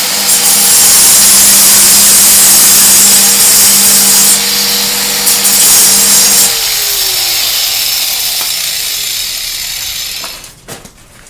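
Power saw with a diamond blade cutting into a concrete driveway, a loud, harsh grinding, for about ten seconds. About six seconds in it eases and drops in pitch as the cut lightens, then it stops near the end.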